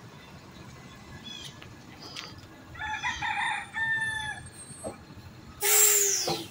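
A rooster crowing once, a few short choppy notes about three seconds in and then a long held final note. Near the end comes a loud hiss lasting about a second.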